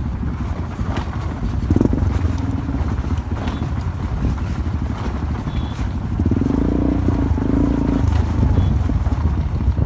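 Honda XR125's single-cylinder four-stroke engine running as the motorcycle rides a rough dirt track, over a constant low rumble with occasional knocks and rattles from the bumps. The engine note comes up louder about six seconds in.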